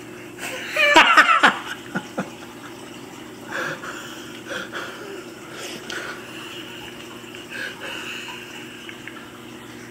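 A person laughs briefly about a second in, over a steady low hum that continues, with a few faint soft sounds after.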